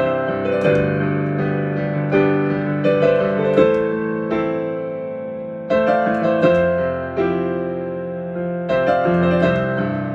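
Solo piano improvising slowly: chords struck one after another and left to ring and fade, a fresh chord roughly every second.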